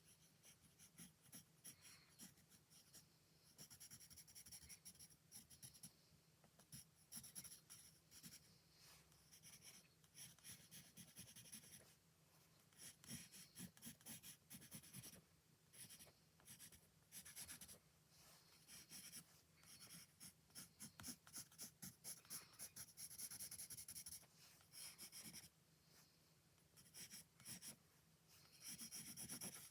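Scratchy strokes of a drawing tool on paper, coming in quick runs with short pauses, over a faint steady low hum.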